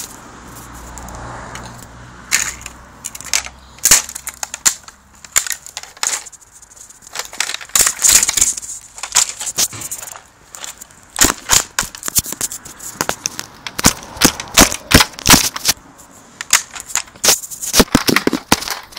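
Plastic car hubcap cracking and snapping as a bicycle is ridden over it, being broken into pieces. Sharp, irregular cracks, a few at first, then coming thick and fast in the second half.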